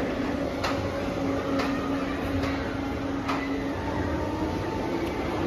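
Amusement ride machinery running with a steady hum that steps up in pitch about four seconds in. A sharp click comes roughly every second for the first few seconds.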